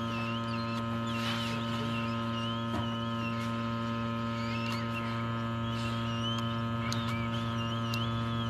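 Steady electrical mains hum with many overtones, with a faint wavering high whistle above it and a few light clicks.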